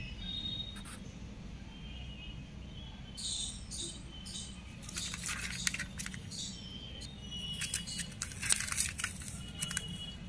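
Bursts of scratching and rustling, the loudest about eight to nine seconds in, as a sun conure moves about on paper at the bottom of its cage. Faint, short bird chirps come and go throughout.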